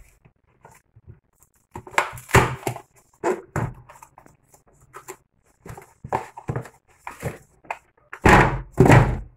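Cardboard shipping box being opened by hand: a series of irregular rustles, scrapes and tears as the flaps are pulled back, then a louder thump and scrape near the end as the boxed pump is pulled out and the carton pushed aside.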